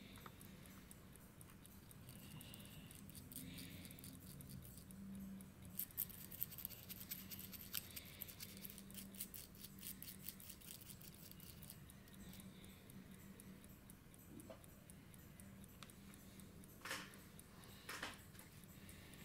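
Faint, rapid light clicking of a fine mixing tool against a small ceramic dish while luminous compound is stirred into fixer, with a couple of slightly louder clicks near the end.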